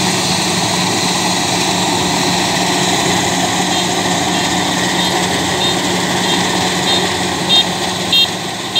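Kubota DC-93 combine harvester running under load as it cuts and threshes rice: a loud, steady drone of diesel engine and threshing gear. About halfway through, a regular high-pitched beeping joins in, faint at first and louder near the end, about one and a half beeps a second.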